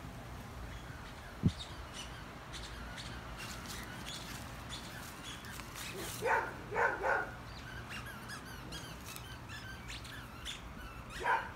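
Small birds chirping throughout, with short, sliding high calls. A few short squeaky sounds come in a quick cluster of three about six seconds in and once more near the end.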